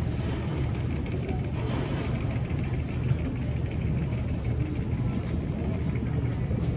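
Airport terminal ambience: a steady low rumble of machinery, with a faint murmur of distant voices.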